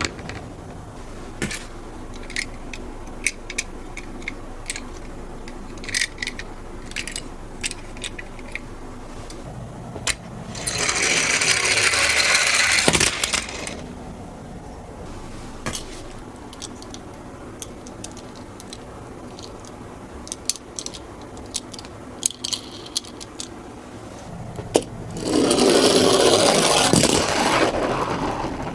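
Toy minicars clicking and knocking as they are handled, with two rattling rolling runs of about three seconds each, about ten seconds in and near the end, as the cars run down a slope.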